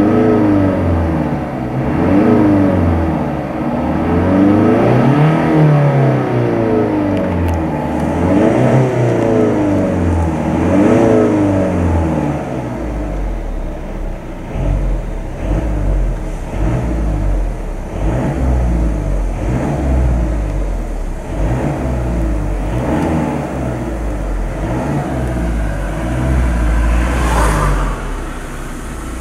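Volvo XC60 D4's 2.0-litre four-cylinder twin-turbo diesel being revved repeatedly while parked, heard from inside the cabin, its pitch rising and falling with each rev. It gives several long revs in the first half, then a run of shorter, quicker blips.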